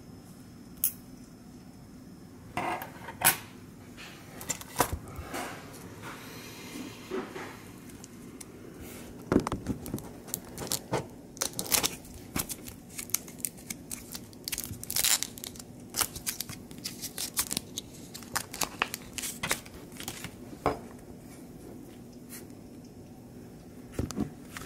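Metal geocoins and clear plastic coin cases being handled on a tabletop: a string of irregular clicks, taps and clatter as coins are taken out of their cases and set down, busiest in the middle of the stretch.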